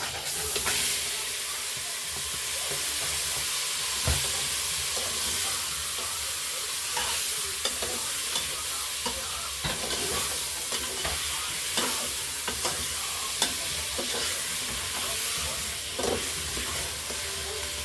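Seasoned mutton frying in hot oil with burnt curry in a pot: a steady, dense sizzle, with scattered clicks and knocks throughout.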